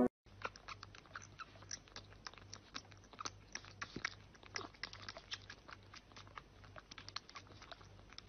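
A kitten suckling milk from a feeding bottle's nipple: faint, irregular wet smacking clicks, several a second.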